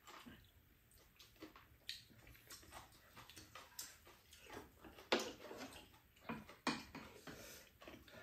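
Ramen noodles being slurped and chewed, with irregular short clicks and slurps; the loudest come about five seconds and about six and a half seconds in.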